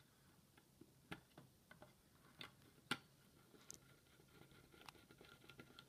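Faint, scattered small clicks and taps of a screwdriver and screws as a circuit board is screwed back into an ultrasonic diffuser's plastic housing, the sharpest tap about three seconds in. A faint thin squeak runs through the last couple of seconds.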